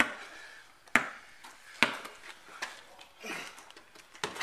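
Basketball being dribbled on a driveway: single sharp bounces about once a second, four or five in all.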